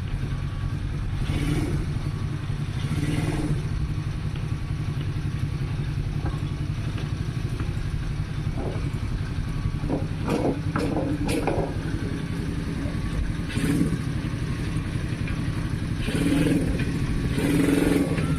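Motorcycle engine running steadily at idle, with a few sharp clicks about two-thirds of the way through; it runs a little louder near the end.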